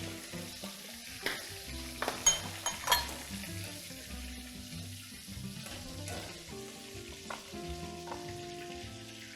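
Shrimps deep-frying in hot oil, a steady sizzle, with a few sharp clinks of a utensil against the pan about one to three seconds in.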